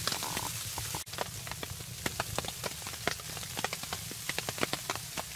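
Wood fire crackling inside a small tent wood stove: irregular sharp pops and ticks, several a second, over a steady hiss.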